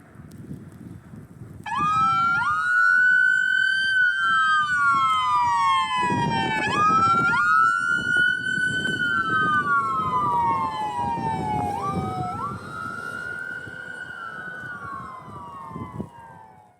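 Emergency-vehicle siren on a responding fire department pickup truck, switching on about two seconds in and wailing in three slow cycles, each a quick rise then a long slow fall, heard as two slightly offset overlapping tones. A low rumble of vehicle and wind noise runs underneath.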